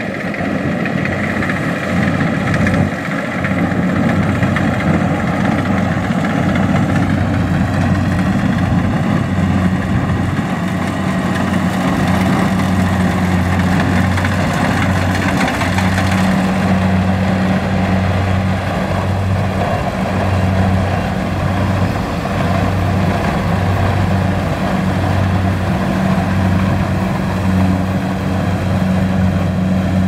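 Rice combine harvester engine running steadily with a constant low hum.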